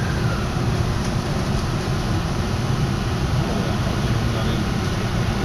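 Tokyo Metro Hanzomon Line subway train running, a steady low rumble.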